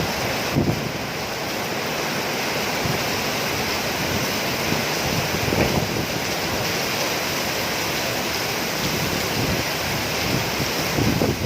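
Heavy rain falling as a steady, dense hiss, with a few brief louder low swells.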